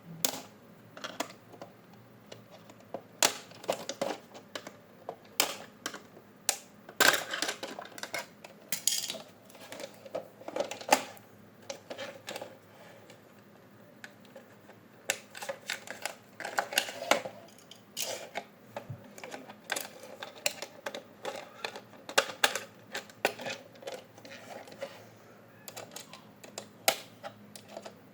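Irregular clicking and clattering of hard plastic toy parts being handled, in uneven clusters with short pauses.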